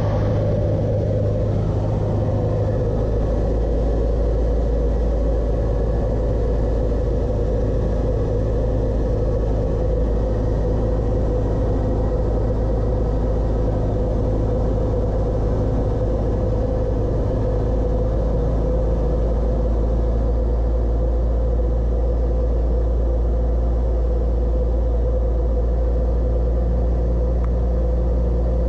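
Cessna 172's piston engine and propeller droning steadily, heard inside the cockpit. About three seconds in, the drone's low note drops lower and then holds steady.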